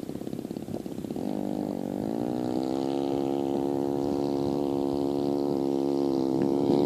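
Small two-stroke chainsaw engine powering a homemade ice kart. It runs at low revs with uneven firing, revs up about a second in, and holds a steady high-rev note.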